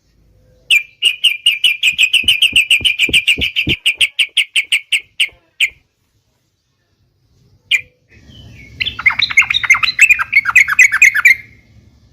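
Yellow-vented bulbul (trucukan) calling. A fast run of about two dozen even chattering notes, around five or six a second, is followed by a couple of single notes and, about nine seconds in, a second quick run of falling notes.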